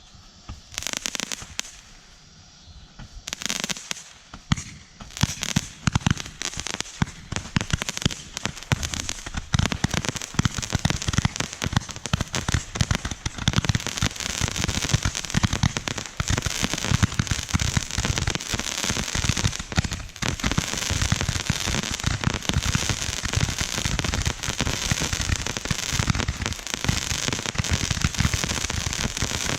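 A rack of eighty 10-shot Roman candles firing: scattered pops in the first few seconds build into a dense, continuous barrage of shots that runs on without a break.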